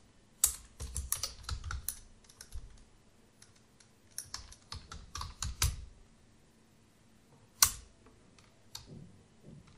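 Computer keyboard typing: two quick runs of keystrokes, then after a pause a single louder keystroke followed by a few light taps.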